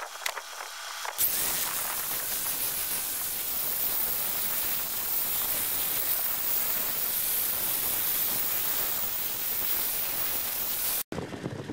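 Angle grinder fitted with a wire cup brush scouring rust off the underside of a steel rail, a steady rough noise. It cuts off abruptly near the end.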